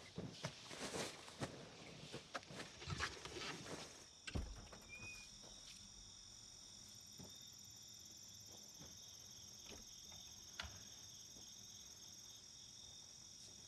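Rustling and light knocks, ending in a dull thump about four seconds in, followed by a steady chorus of crickets chirping in a forest at night.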